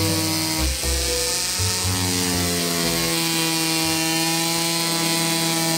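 Ingco mini grinder (rotary tool) running with a steady whine while its ball burr engraves into wood; its pitch sags slightly about two seconds in as it bites. Background music plays underneath.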